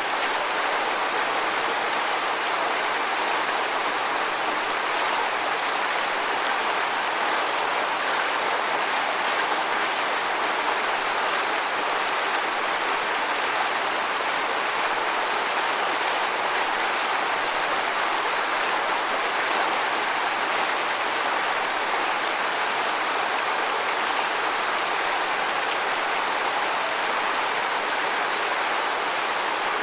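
Waterfall: water falling and rushing without a break, a steady even roar of noise.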